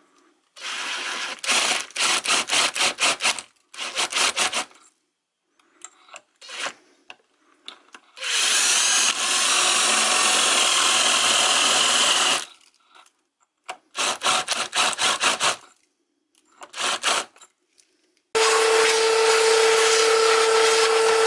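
Power drill turning a countersink bit into an aluminium motor mount, cutting countersinks into the screw holes. It comes in short stuttering bursts, then two longer steady runs of about four seconds each, the last with a steady whine.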